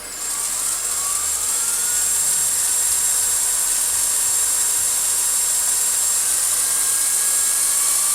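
Gas torch flame hissing steadily while it heats the neck of a rifle case for annealing. A faint whine rises in pitch about a second in.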